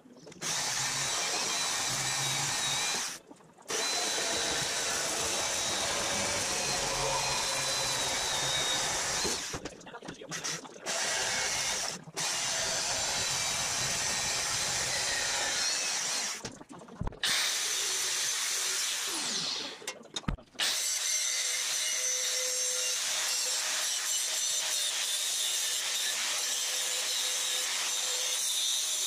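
Handheld electric sheet-metal cutter running as it cuts through steel sheet, in several stretches with short stops. About two-thirds of the way in, an angle grinder takes over, grinding a steel piece with a steady whine.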